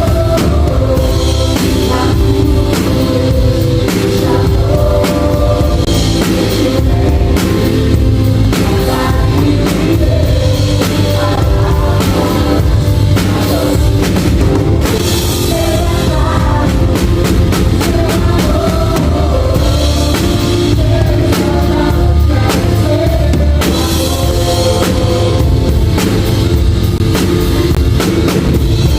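Drum kit played through rock music that also has singing and pitched instruments, loud and continuous.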